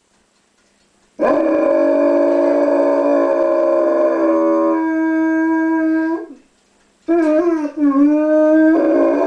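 Old English Sheepdog howling: one long held howl begins about a second in, its pitch stepping down partway through. After a short break, a second howl starts with a wavering pitch and then holds steady.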